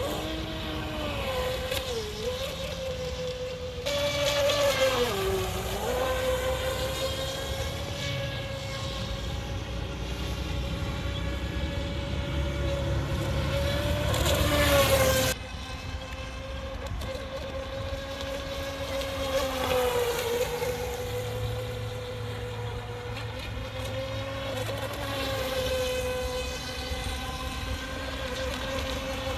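Pro Boat Stealthwake RC boat with a wire drive running across the water under electric power, its motor whining steadily at a high pitch that dips briefly several times as the throttle eases and comes back.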